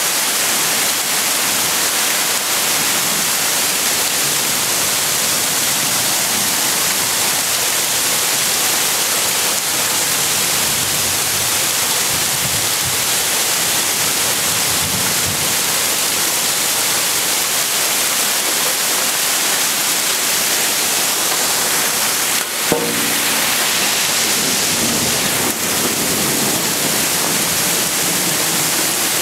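Hail falling steadily, a dense, even hiss. About three-quarters of the way through there is a single sharp click.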